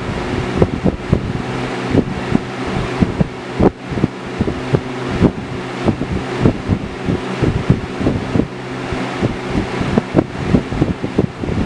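Lasko 20-inch box fan running steadily: an electric motor hum under the rush of air from the blades, with irregular gusts of its airflow buffeting the microphone several times a second.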